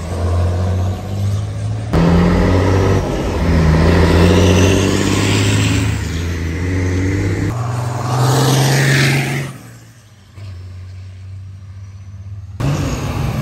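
Formula Truck race trucks' diesel engines running and driving past on the circuit, in several short clips that change abruptly. A passing engine rises and fades about eight to nine seconds in, followed by a quieter stretch of more distant engine sound.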